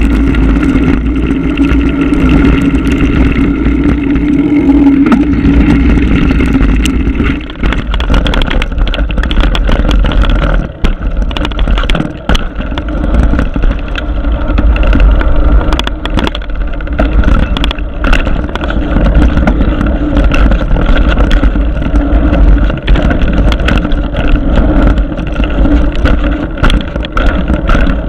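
Wind buffeting a GoPro's microphone while riding a mountain bike, with short rattles and knocks from the bike over rough trail. It dips briefly a few times.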